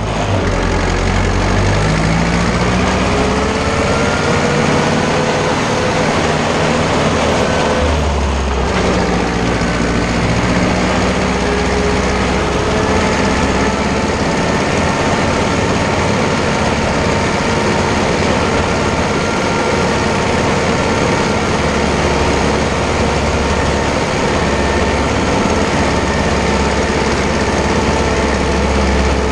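Ursus tractor's diesel engine running as the tractor drives, heard from inside the cab. The engine pitch climbs over the first few seconds, drops briefly about eight seconds in, then holds steady.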